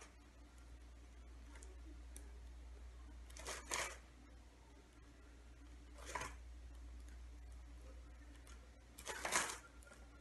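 A gift bag rustling three times as small objects are put into it, about three and a half, six and nine seconds in, the last the loudest.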